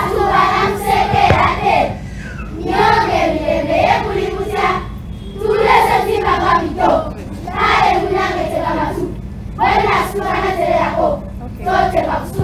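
A group of young children chanting together in unison, about six short phrases with brief pauses between them: a choral recitation of a poem.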